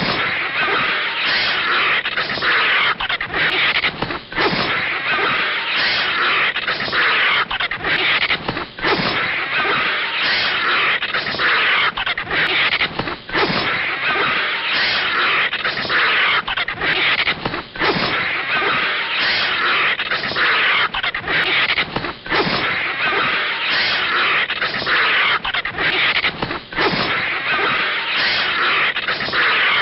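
Cartoon sound effects of a snake and a vulture fighting: a continuous raspy hissing screech with brief breaks every second or so.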